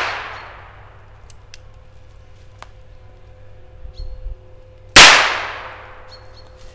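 Nagant M1895 revolver converted to fire 9 mm P.A. rubber-bullet cartridges, fired by hand. The sharp report of one shot is fading at the start, and a second shot comes about five seconds in, dying away over about a second. A few faint clicks fall in between.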